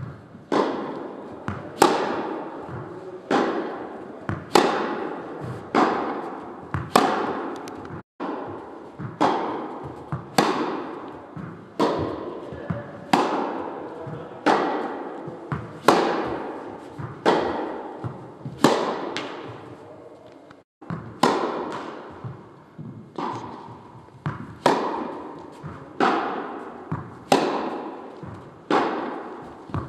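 Tennis ball struck by rackets in a steady rally, a sharp hit about every second and a quarter, each followed by a short echoing tail. The sound breaks off for a moment twice, about a third of the way in and again about two-thirds in.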